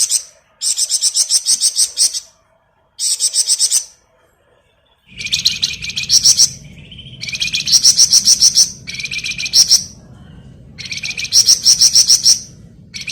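Flamboyan songbird singing its rapid trilling 'ngebren' song: repeated bursts of fast, high chattering notes, each about a second long, with short pauses between. A low background hum comes in about five seconds in.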